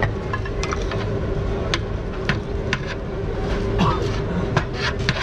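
Busy street ambience: a steady low rumble with a constant hum, and a dozen or so scattered sharp clicks and knocks.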